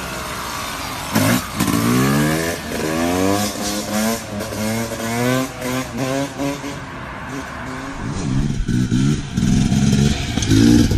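Dirt bike engine revving hard in quick repeated rises in pitch, about two a second, as the rider holds a wheelie. Near the end a louder, rougher engine noise takes over.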